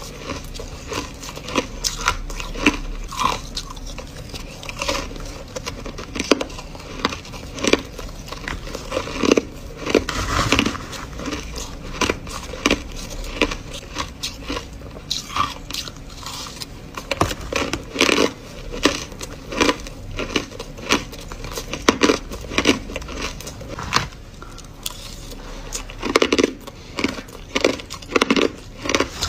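Crushed ice being chewed close to the microphone: crisp crunches in quick, irregular runs, with a cluster of louder ones near the end.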